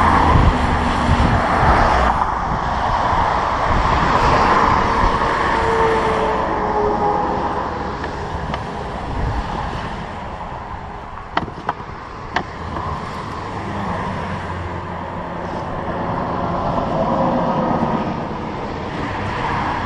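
Interstate traffic rushing past, the noise swelling and fading as vehicles go by. Three short sharp clicks sound a little past the middle.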